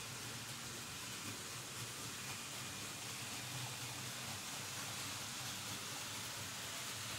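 Several Märklin H0 model trains rolling on metal M-track, a steady, even rushing rattle of many wheels on the stamped tinplate rails.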